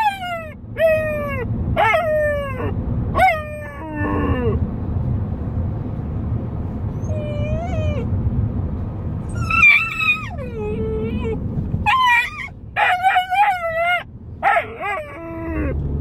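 Young male Magyar Vizsla whining and howling in a string of short, high cries that mostly slide down in pitch. The cries come in runs, with a pause of a few seconds in the middle and a dense run near the end, over the low rumble of the car he is riding in.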